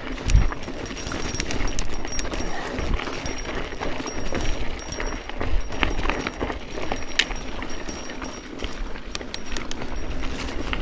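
Mountain bike running down a loose, rocky dirt singletrack: tyres crunching over gravel, with the bike rattling and clicking steadily over the bumps, and a low thud about half a second in.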